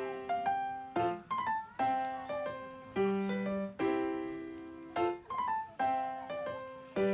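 Background piano music: a light melody of struck notes over a phrase that repeats about every four seconds, each note dying away.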